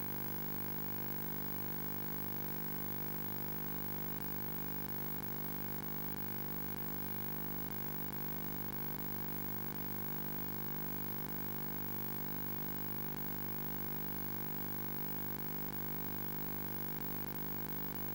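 Steady, unchanging electronic hum made of many even tones, with no other sound: faulty audio standing in for the recording's real sound.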